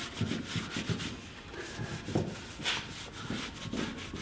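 A sponge scrubbed back and forth over a rough block of stone in short, quick strokes, wetting it to bring out its colours and show up any cracks.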